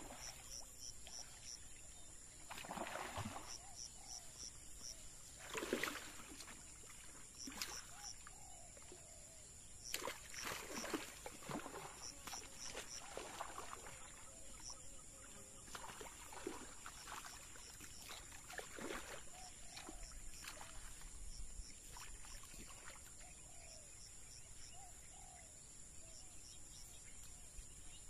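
Scattered splashes and sloshing in shallow water while a hooked snakehead is played on a spinning rod, the biggest about six and ten seconds in. Under it runs a steady high insect drone with short chirps repeating.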